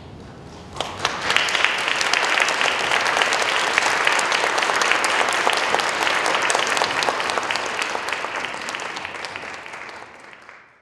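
Audience applauding, breaking out suddenly about a second in as a dense patter of many hands clapping, then fading away near the end.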